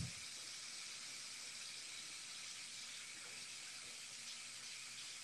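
Faint, steady hiss of room tone with no distinct events, and a small knock right at the start.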